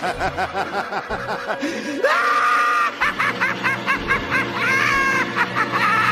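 A corgi howling and yowling in a string of wavering, yodel-like cries. About two seconds in they turn higher and longer, breaking into quick pulses between the drawn-out notes.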